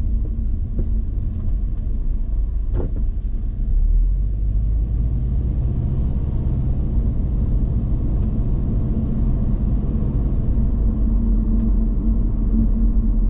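Subaru Impreza WRX STI on the move: the steady hum of its turbocharged flat-four engine under a low road rumble, a little louder from about four seconds in. A single sharp knock comes about three seconds in.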